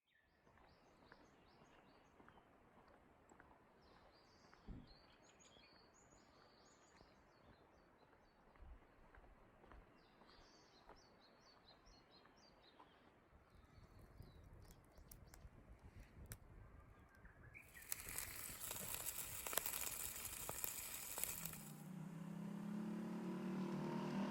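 Faint small birds chirping in short bursts over a low outdoor rumble. About three-quarters of the way through, a louder even hiss comes in for a few seconds, and near the end a steady low hum starts.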